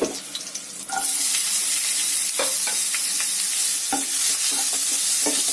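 Onions hitting hot oil in a pan with whole spices and curry leaves: a loud sizzle that starts sharply about a second in and holds steady, with a few knocks of the spoon against the pan as they are stirred.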